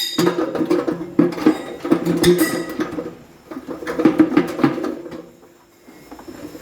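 Irregular metallic clanks, clinks and knocks as the cut-open washing machine drum and its parts are handled, with a quieter pause near the end.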